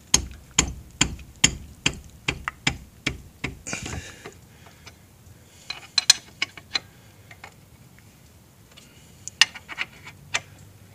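Sharp clicks of an 18mm wrench working a brake caliper bolt loose, about two a second for the first few seconds, then a few scattered clicks later on.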